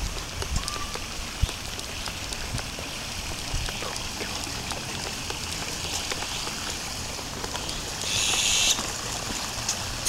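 Small shallow stream trickling with a steady hiss, with faint steps on a stone path. A brief, louder high hiss comes a little after eight seconds.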